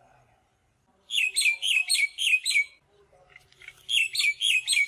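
A bird singing: a quick run of repeated downward-slurred notes, about four a second, that stops and then starts again about a second later.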